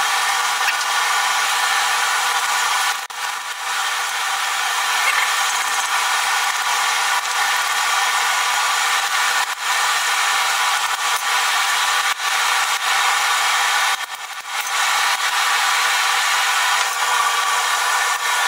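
Fast-forwarded forge work at the anvil: hammer blows and tong handling of a hot steel strip, sped up so they run together into a continuous thin, dense clatter with no low end.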